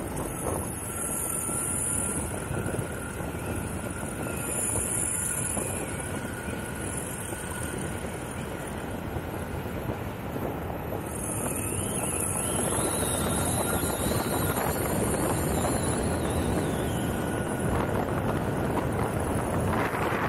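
An electric skateboard's urethane-sleeved wheels rolling on asphalt, with wind rushing over the microphone and a faint electric whine from the hub motors: a steady tone for the first half, then a higher, wavering one. The noise grows a little louder past the middle.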